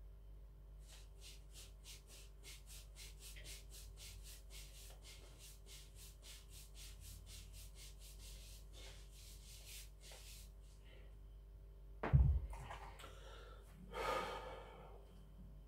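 Wrist roller being worked: its handle and cord make regular rasping strokes, about three a second, as the weight plate is wound up. About twelve seconds in there is a heavy thud as the plate comes down. A loud breathy exhale follows near the end.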